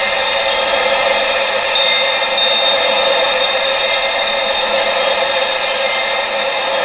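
Synthesized wind-like hiss for tinnitus masking therapy, steady and cut off below about 500 Hz, with thin high-pitched tones held steady through it.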